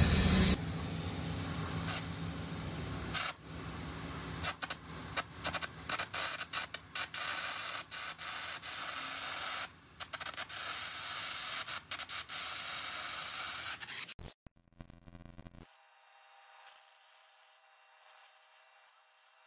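Cracks being gouged out of a steel trommel drum with an arc or plasma gouging torch: a steady, harsh hissing crackle that cuts in and out many times. It stops about fourteen seconds in, leaving only faint hiss.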